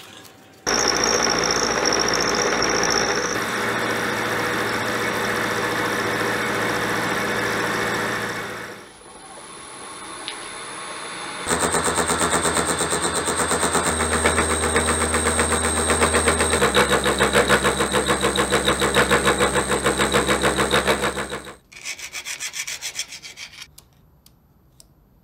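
Milling machine cutting a dovetail in a steel block with a dovetail cutter, the cut running with a fast, even rattle of the cutter's teeth. The cut eases off briefly partway through, comes back louder, and stops a few seconds before the end, followed by a few light scrapes.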